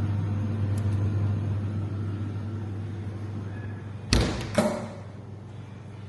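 Steady low hum of a running vehicle, slowly fading, broken about four seconds in by two sharp thuds half a second apart.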